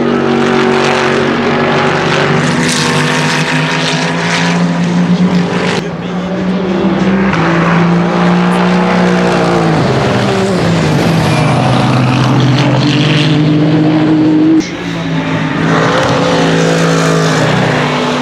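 LMGT3 race car engines, fitted with 100 dB-limit mufflers, running at speed as several cars pass. Their engine notes step and glide up and down, with a long drop in pitch about ten seconds in. The sound cuts down abruptly near the end.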